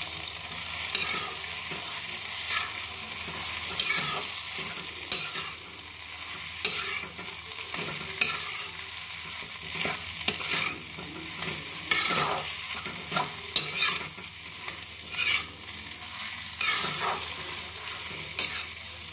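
Metal spatula scraping and knocking against a kadhai, roughly once a second, as mashed boiled potatoes are stirred into tomato-onion masala, over a steady sizzle of the hot oil in the pan.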